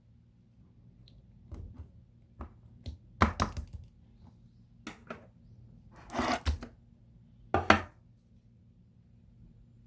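A handful of irregular knocks and taps of objects being handled on a hard surface, with two short, louder scraping bursts a little past halfway.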